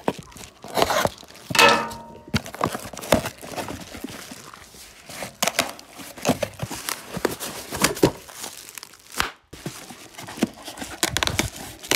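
A cardboard box and a plastic mailer bag being handled and opened by hand: irregular rustling and crinkling with scattered light knocks.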